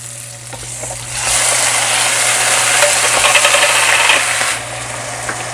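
Chicken hitting hot oil in a pan and sizzling loudly, starting about a second in and dropping off suddenly near the end.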